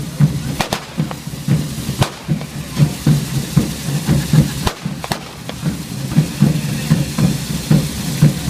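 Hand-held ground-level fireworks fizzing and spraying, with sharp firecracker bangs every second or so and a fast, steady drumbeat underneath.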